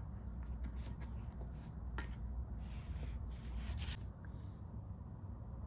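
Light scraping, rubbing and scattered clicks of small parts being handled, stopping about four seconds in, over a steady low hum.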